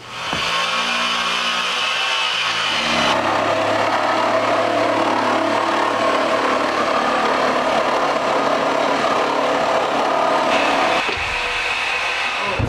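Power saw cutting through wooden deck boards, its motor running steadily under load with a whine that shifts in pitch about three seconds in and again near the end.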